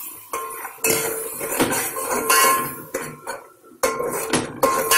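A metal fork knocking and scraping against the sides and bottom of a stainless steel pot as a wet masala is stirred, many irregular clanks with the pot ringing briefly after them.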